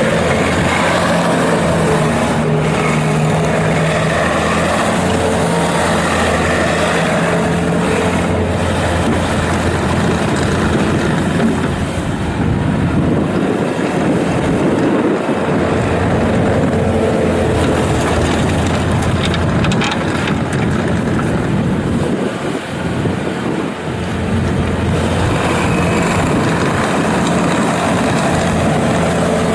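Bobcat T650 tracked skid steer loader's diesel engine running steadily and loudly, its pitch shifting a little as the revs change, briefly quieter twice, about twelve and twenty-three seconds in.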